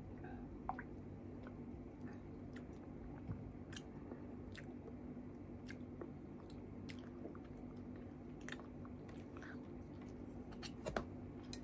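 Faint chewing and mouth sounds of a person eating, with scattered soft clicks over a steady low hum, and a slightly louder click near the end.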